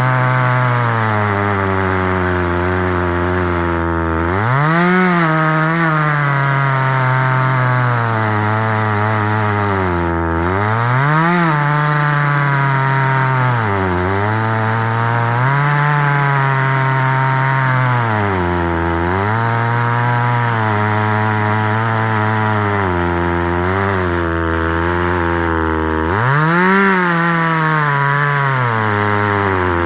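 Chainsaw on a chainsaw mill running under load through a cut. Its engine speed sags and picks up again every few seconds, jumping up sharply about five, eleven and twenty-seven seconds in.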